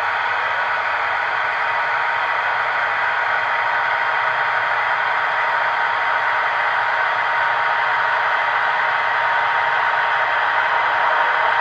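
Märklin HO-scale electric locomotives running slowly on the track: a steady whirring hiss with a constant thin high hum.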